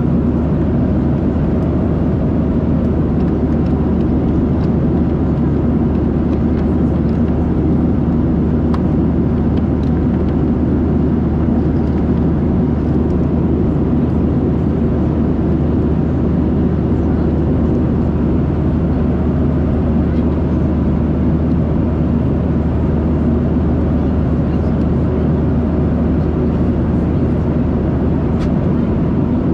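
Steady cabin noise inside a Boeing 737-700 at cruise: the deep, even rumble of its CFM56 jet engines and the airflow over the fuselage, unchanging throughout.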